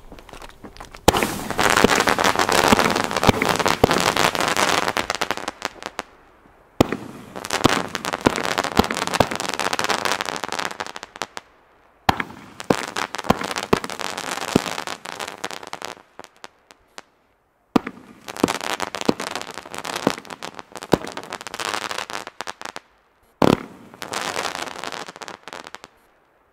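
Pusteblume firework battery firing in about five waves of rising comets that break into dense white crackling, each wave starting abruptly and dying away. A single sharp bang comes near the end.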